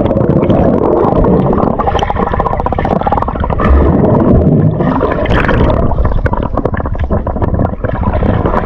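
Muffled underwater sound of a snorkelling diver swimming down and kicking: water rushing and bubbling against the submerged camera, with dense clicking and crackle.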